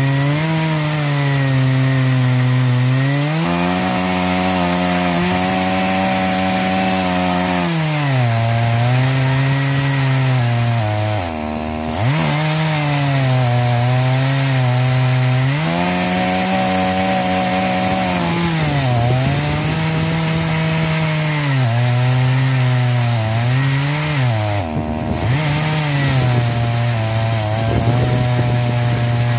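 Dolmar 120si 68cc two-stroke chainsaw on an Alaskan mill with a 24-inch bar, running at full throttle while ripping a slab lengthwise from a log. Its engine pitch rises and falls again and again as the load of the cut changes, and twice, about 11 and 25 seconds in, it dips sharply and recovers.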